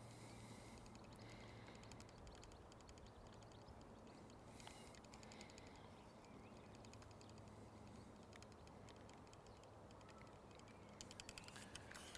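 Near silence: faint outdoor background, with patches of faint, rapid high-pitched ticking.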